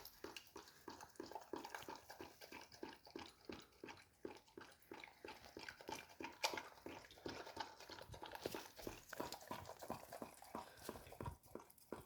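Dog eating, with a quick steady run of wet mouth noises at about four a second.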